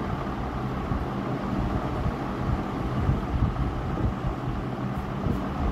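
Steady low hum and rumble of background noise, with no clear events.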